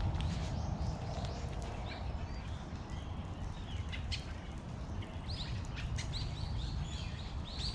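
Small birds chirping, a quick series of short high calls that come thicker in the second half, over a low steady background rumble.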